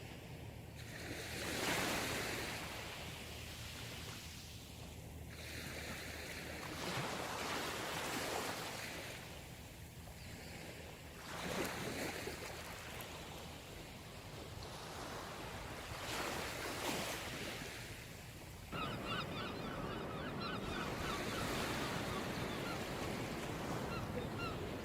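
Sea waves breaking on a shore, a swell of surf about every four to five seconds. From about three-quarters of the way through, birds call over the surf in short repeated notes.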